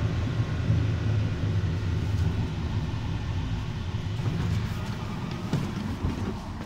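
Konstal 105Na tram running, heard from inside by the doors: a steady low rumble of wheels on rails and the traction motors. It thins out after about four seconds as the tram comes to a stop.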